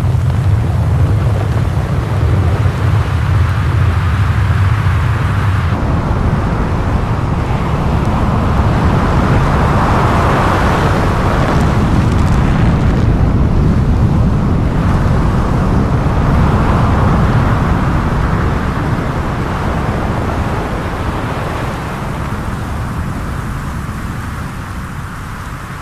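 Snow avalanche sliding downhill: a continuous loud rumble and rush of moving snow that swells in the middle and fades toward the end.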